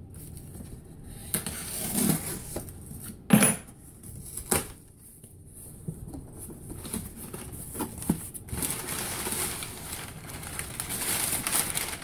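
Cardboard shipping box being opened by hand: a few sharp knocks and scrapes as the flaps are pulled open, the loudest about three seconds in, then steady rustling of the kraft packing paper inside from about eight seconds in.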